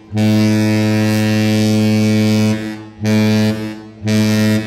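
Ship's horn sounding one long, low blast of about two and a half seconds, then two short blasts. The host takes the signal for a greeting from the captain.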